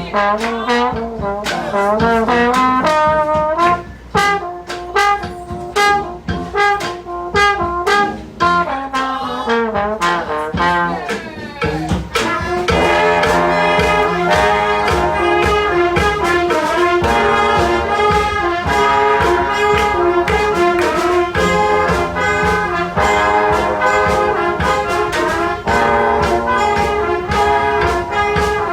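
Street brass band playing a tune, trumpets and trombones over drums. A thinner melody line with drum hits at first, the full band coming in loud about twelve seconds in.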